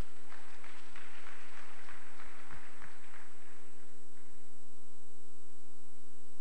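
Steady electrical mains hum on the church's sound system, with a short spell of applause from the congregation in roughly the first three seconds.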